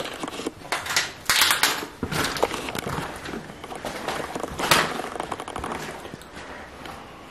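Footsteps crunching over a debris-strewn floor: an irregular run of sharp cracks and clicks, loudest about a second and a half in and again near five seconds.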